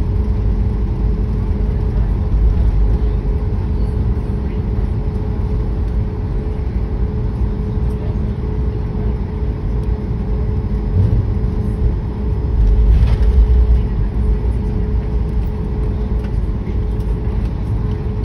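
Airliner cabin noise while taxiing: a steady low rumble of the jet engines and airframe with a constant hum over it, swelling briefly about thirteen seconds in.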